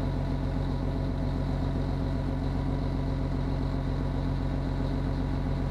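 Fishing boat engine running steadily at an even pace.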